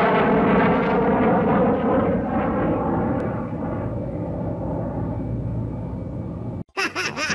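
An engine passing by: its many-toned drone drops in pitch, then holds steady while slowly fading. It cuts off suddenly near the end, giving way to music with sliding whistle-like tones.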